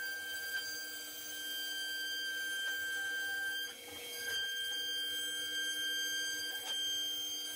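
GreenBull v2 vertical 60-degree CNC router running a cut in a wood strip: a steady high whine from the machine's motors and spindle. The whine breaks off and dips for about a second a little under four seconds in, then carries on.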